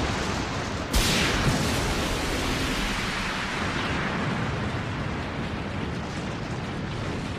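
Animated explosion sound effect: an airship blowing up. A sharp blast comes about a second in, followed by a long rumble that slowly dies down.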